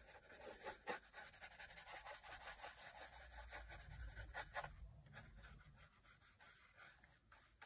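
Faint, quick scratchy strokes of a small brush rubbing charcoal dust into drawing paper to shade a sphere, thinning out and getting quieter over the last couple of seconds.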